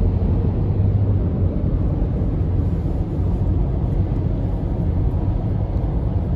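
Steady low road and engine rumble inside a moving car's cabin, with no distinct events.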